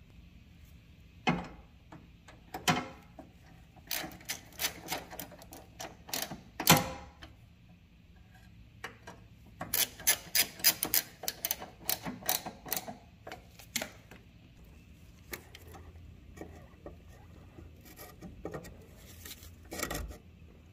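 Ratchet wrench clicking in bursts with small metal knocks as the power steering reservoir bracket bolts are tightened, then a dull knock near the end.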